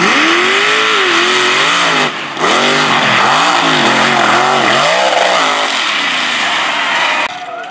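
Mud racing truck's engine at full throttle through a mud pit, its revs rising and falling again and again as the tyres spin and throw mud. The sound breaks off abruptly for a moment about two seconds in and again near the end.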